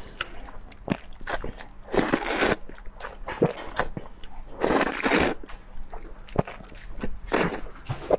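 A person eating hot and sour glass noodles close to the mic: two long wet slurps about two and five seconds in, with chewing and short smacking clicks between.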